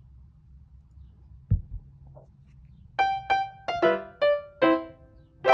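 A low thump about one and a half seconds in, then a short piano melody of about seven separate notes, each ringing and fading, starting about three seconds in.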